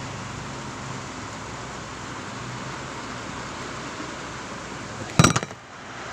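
Steady background hiss with one sharp, loud knock about five seconds in, followed by a brief hush.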